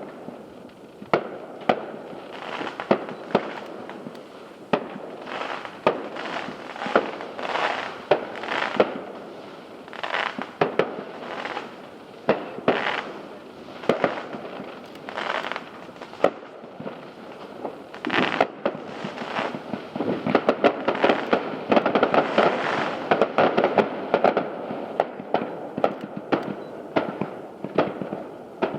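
Aerial fireworks show: a steady string of bangs from shells bursting, mixed with crackling. About two-thirds of the way through, it thickens into a dense barrage of rapid crackles and pops.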